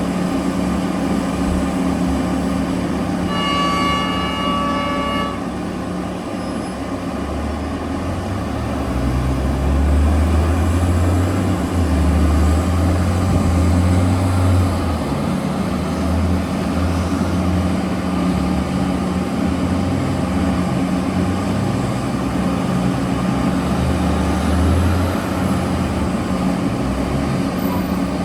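Heavy mining machinery diesel engines running steadily, with a deeper rumble swelling for several seconds as the machines work under load. A single horn blast of about two seconds sounds about three seconds in.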